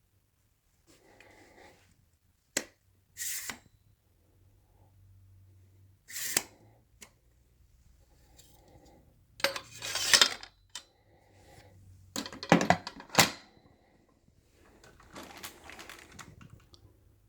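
Hard plastic and metal parts of an upright vacuum being handled: a string of sharp clicks, knocks and short clattering rattles, with the motor off. The busiest, loudest clatter comes in the second half.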